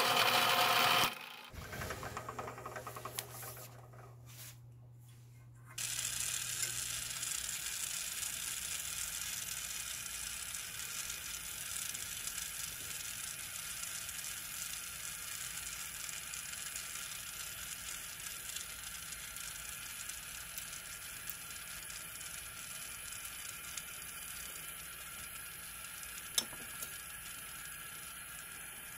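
A drill press drilling through a small metal plate cuts off about a second in. From about six seconds in, a gas torch's flame hisses steadily, heating a small metal plate for silver soldering, with one sharp click near the end.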